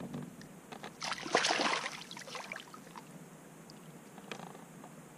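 A hooked fish thrashing at the water surface: a splashing burst about a second in, the loudest sound, with faint water clicks and ticks around it.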